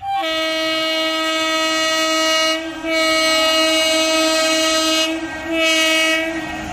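Horn of an approaching Indian Railways electric locomotive, sounded in three long blasts with short breaks between them.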